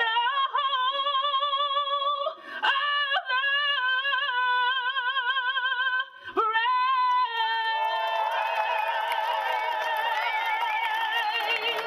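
A woman singing long held notes with vibrato in soundtrack music; from about eight seconds in, further voices or layers join and the sound thickens.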